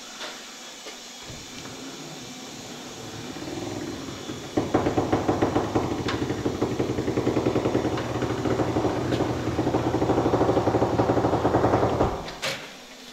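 Cab-over semi truck's diesel engine cranking over on the starter in a steady rhythmic chug for about seven seconds, then cutting off abruptly, followed by a single sharp clack.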